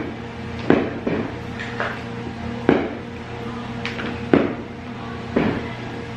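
Irregular hard knocks and clunks, about seven or eight, from the plastic parts and box of a ride-on toy car being handled, over a steady low hum.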